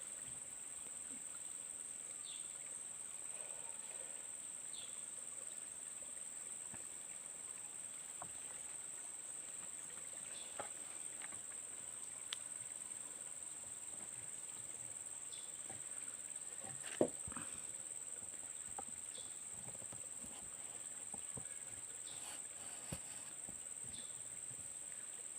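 Steady high-pitched drone of insects, with a few faint scattered knocks; the loudest knock comes about 17 seconds in.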